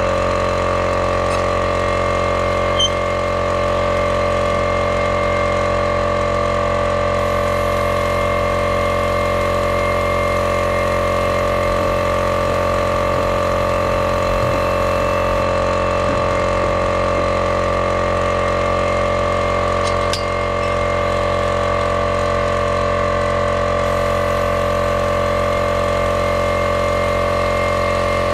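Small air compressor running steadily with an even hum, supplying compressed air to a flushing sludge bailer that sinks a well casing.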